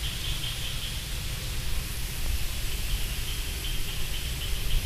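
Steady background hiss with no distinct sounds.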